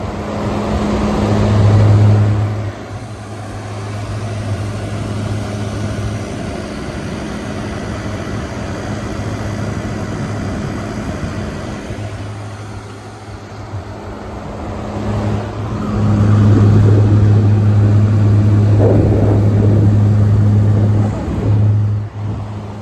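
2023 General Electric 5,000 BTU window air conditioner running on high cool: a steady compressor hum under the rush of the fan. The hum swells louder twice, briefly near the start and for several seconds in the second half.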